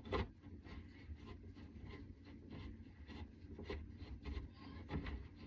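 Screwdriver turning a screw into a door handle: faint scraping with scattered light clicks, one sharper click right at the start.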